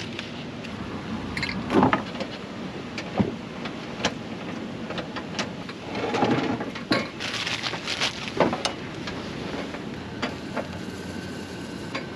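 Wind rushing over the microphone, with a string of knocks and clatters from things being handled, the loudest about two seconds in and again around six to eight seconds.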